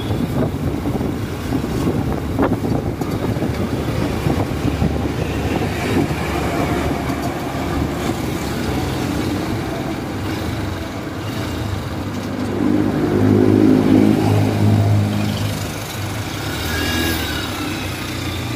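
Motorcycle engine running while riding along a wet street, with road and wind noise. About two-thirds of the way through, a deeper, louder engine swells and fades as a box truck is passed.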